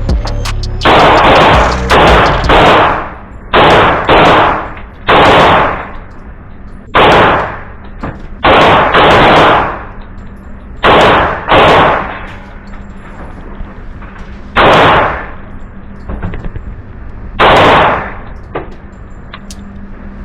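Girsan MC1911S Liberador II .45 ACP pistol fired about a dozen times at an irregular pace, some shots in quick pairs, each loud with an echoing tail.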